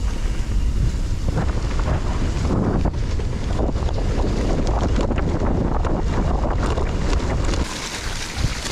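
Wind buffeting the microphone as a mountain bike rides downhill, over a constant rattle and clatter of the bike and its tyres on a rough, wet trail. The heavy wind rumble drops off a little before the end, leaving a lighter crackle of tyres and bike.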